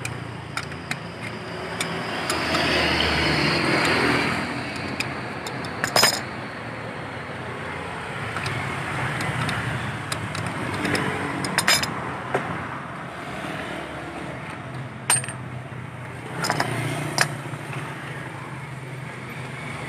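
Metal parts of a scooter's CVT rear clutch being handled on a concrete floor: a few sharp metallic clinks as the clutch nut, shoe plate, spring and wrench are moved and set down. Traffic swells past in the background a couple of seconds in.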